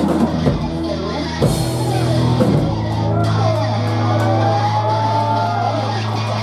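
Live rock band playing loud, with electric guitar, bass guitar and drum kit. Drum hits and a cymbal crash come in the first three seconds; after that a low bass note is held steady under wavering high notes.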